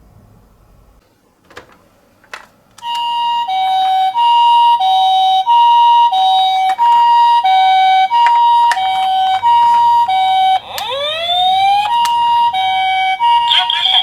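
Toy ambulance's electronic two-tone siren, a high and a low note alternating about every half second in the Japanese ambulance pattern, starting about three seconds in after two faint clicks. A quick rising sweep breaks into it about two-thirds of the way through before the two-tone pattern resumes.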